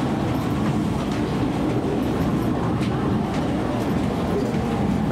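Electric commuter train running through a station yard, heard from on board: a steady rumble of wheels on rail, with a few faint clicks over rail joints partway through.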